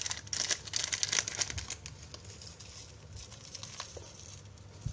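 Plastic packet of fish-feed pellets crinkling as it is handled, dying down after about two seconds to soft rustling and scattered light ticks as the pellets are poured into a plastic bowl.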